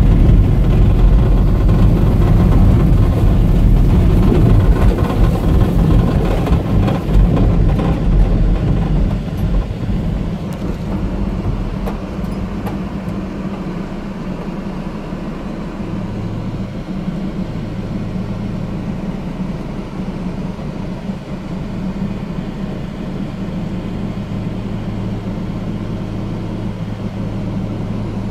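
Off-road vehicle driving over a rough field track, heard from inside, its engine and body rumbling. It slows to a stop about ten seconds in, and the engine then idles with a steady low hum.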